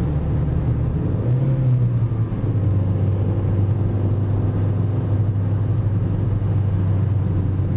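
Engine and road noise heard from inside a moving vehicle: a steady low drone whose pitch steps up about a second in, then holds.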